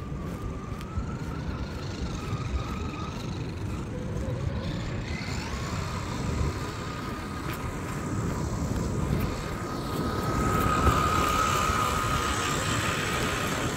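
RC car motor whining as the car drives, the pitch wavering and then holding higher and louder for the last few seconds, over a rough low rumble.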